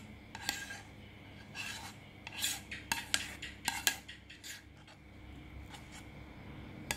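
Metal spoon scraping and clinking against the inside of a metal saucepan as the last of the chocolate glaze is scraped out over a cake. There are a few scattered scrapes early on, then a quick cluster of taps and scrapes in the middle seconds.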